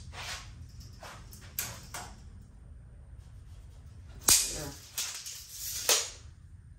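Steel tape measure handled against a steel truck frame: a few sharp clicks and snaps, the loudest a little over four seconds in as the blade runs back into its case with a short hiss.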